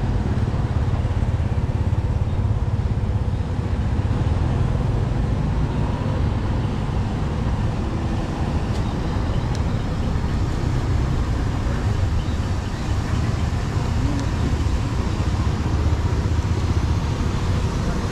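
Steady road-traffic noise of passing vehicles, with a constant low rumble.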